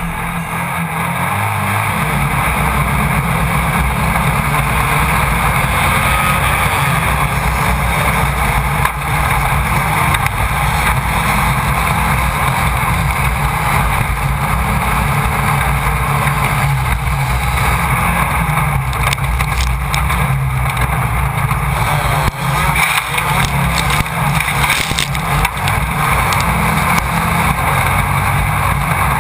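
Class 1600 off-road race car's air-cooled VW engine running hard under way, recorded by a camera mounted on the car. Scattered knocks and clatters from the car are heard, mostly in the second half.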